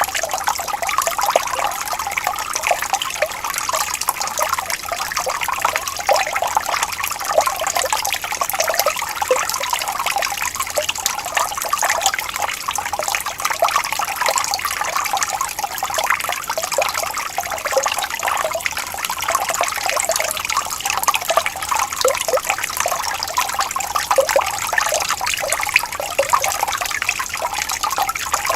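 Stream water flowing and trickling steadily, with many small gurgles and splashes.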